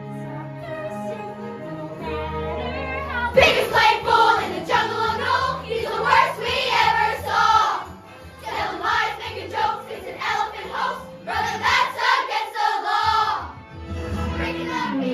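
Music: a group of young voices singing together over a backing track, coming in about three seconds in after a short instrumental opening of held chords.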